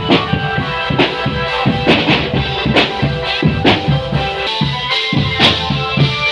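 Marching drum band playing: drums beating a steady rhythm, about two strong beats a second, under a held melody.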